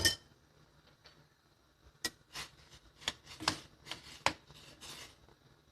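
Faint, irregular light clicks and taps of a kitchen utensil against a cooking pot, about eight of them starting about two seconds in.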